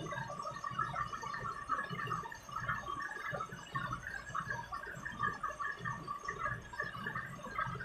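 Washing machine in its wash cycle, water sloshing and churning in the drum with uneven low surges.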